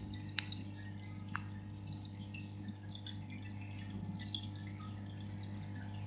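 Aquarium water dripping and trickling over a steady low hum, likely the tank's filter or pump. Two sharp clicks come within the first second and a half.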